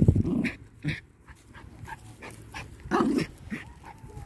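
A dog barking: a short bark about a second in and a louder one about three seconds in, with a faint whine near the end.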